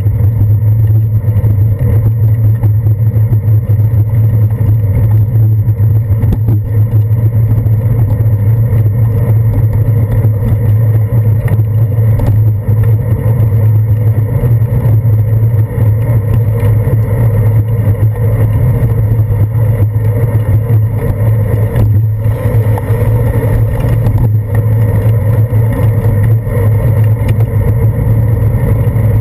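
Steady, loud, muffled rumble of wind and road vibration picked up by a handlebar-mounted GoPro on a bicycle riding along a wet street.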